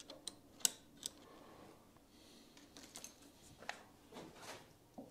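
Quiet handling of a metal axis drive motor as it is worked out of its mount on a lathe: three sharp clicks in the first second, then soft scrapes and rubbing.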